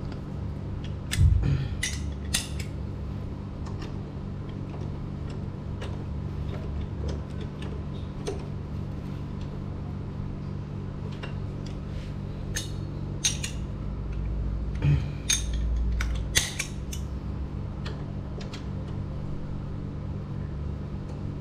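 Hand wrench tightening the gear-oil filler bolt on a Honda scooter's final-drive case: scattered metallic clicks and clinks in small clusters, over a steady low hum.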